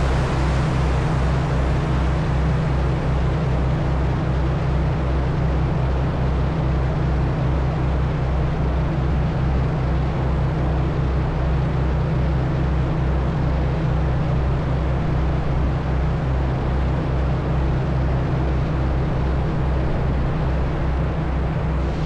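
Passenger ferry's engines running steadily at cruising speed, a low drone with a regular throb, over the rush of water churned up in the wake.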